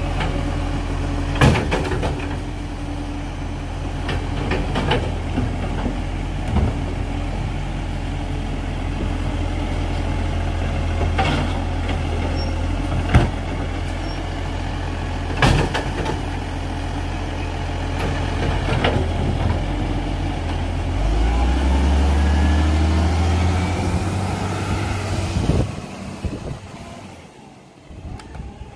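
Side-loading garbage truck's diesel engine running steadily while its automated arm lifts and tips wheelie bins, with sharp clanks and bangs every few seconds. The engine then picks up and the truck drives off, its sound fading away near the end.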